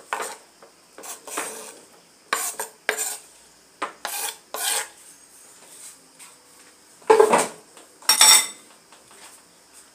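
Kitchen knife scraping and tapping on a wooden cutting board as sliced tomatoes are pushed off into a ceramic bowl, in a run of short strokes. Two louder clatters follow at about 7 and 8 seconds, as a dish or utensil is set down.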